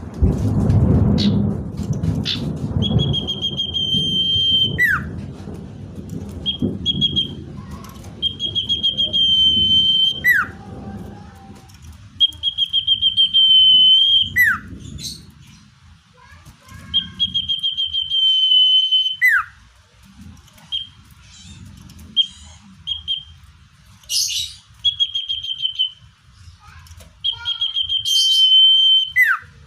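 Common iora singing. It repeats its song about six times: a long, rattly trill held at one high pitch, ending each time in a sharp downward-slurred note, with a few short chips between songs. A low rumble sits under the first few seconds.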